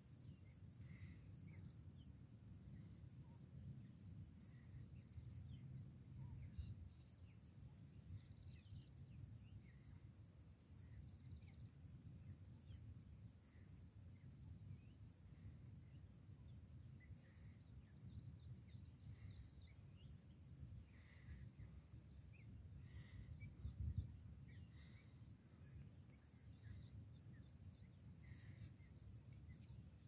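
Faint outdoor ambience: a steady high-pitched chorus of insects such as crickets, over a low rumble, with a few soft scattered chirps and one brief low bump a little past two-thirds of the way through.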